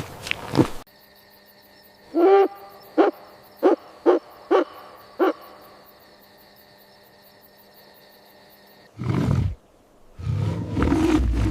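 Owl hooting: one longer hoot and then five short ones over a faint steady hum. Near the end a short rushing burst is followed by a loud, low roar.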